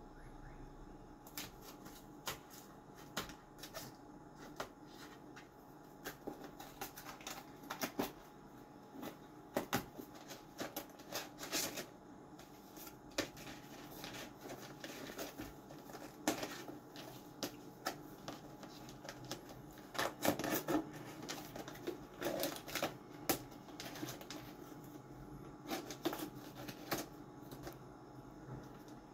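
A cat digging into a cardboard box of cat-food pouches with its head and paws. It makes irregular crinkling, scratching rustles, with bursts of quicker crackling now and then as it works at the packets to pull one out.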